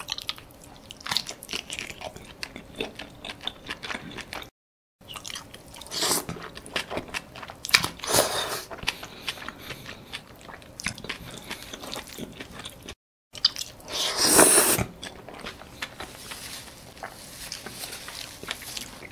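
Close-miked chewing and biting of squid: wet, squishy chewing with mouth clicks, and a few louder bursts about six, eight and fourteen seconds in.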